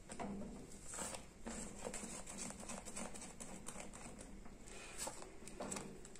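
Silicone spatula stirring a thick condensed-milk cream in a ceramic-coated pot: soft, irregular scrapes and pats a few times a second. The cream is thickening but has not yet reached setting point.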